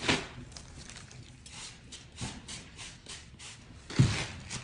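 A plastic-mailer package being wiped down with a disinfectant wipe: a run of quick, soft rubbing strokes, with a knock at the start and a louder thump about four seconds in.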